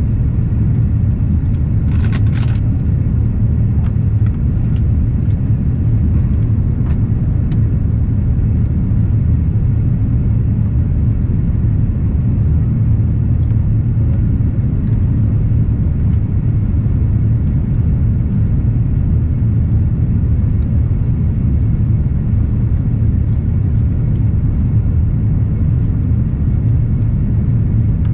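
Airliner cabin noise inside an Airbus in flight: a steady, loud low rumble of jet engines and airflow, with a few faint clicks about two seconds in and again between four and eight seconds in.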